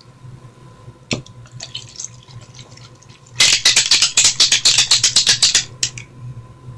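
A spray bottle of makeup mist spritzed in a quick run of hissy pulses lasting about two seconds, starting halfway through, after a single click a second in.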